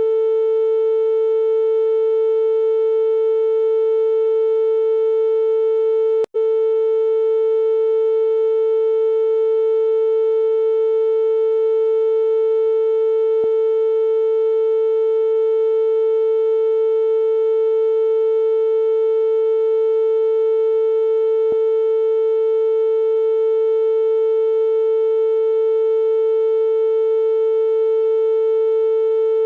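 Steady synthesized tone, a single unchanging pitch a little below 500 Hz with fainter overtones above it, played as a sound-therapy 'ear unclogging frequency'. It cuts out for an instant about six seconds in, then carries on unchanged.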